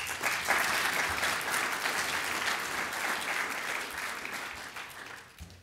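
Audience applauding, the clapping starting at once and dying away over the last second or so.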